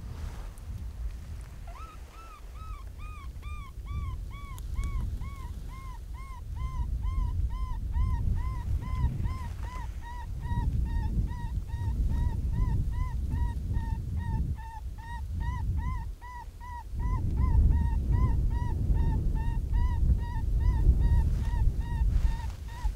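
Predator call sounding a canine-like whimpering distress cry: short whining notes repeated evenly, about two to three a second, starting about two seconds in. Wind rumbles on the microphone beneath it, gusting harder near the end.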